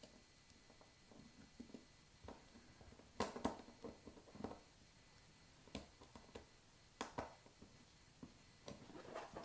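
Faint, scattered clicks and taps of a small screwdriver working a terminal screw down onto a wire in an NMEA 2000 field-attachable connector, against a quiet room.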